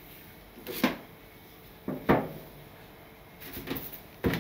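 Bamboo steamer tiers clunking as the upper basket of vegetables is lifted off the lower one and set down on the counter: three short hollow wooden knocks.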